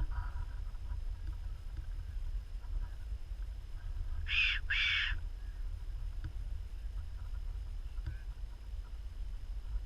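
Fox whistle blown twice in quick succession about four seconds in: two short wavering squeals, a lure call to bring in a fox. A steady low rumble runs underneath.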